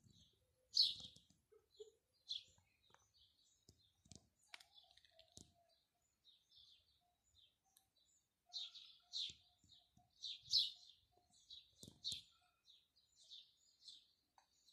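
Small birds chirping: short, high chirps coming in scattered clusters, with a few soft knocks among them.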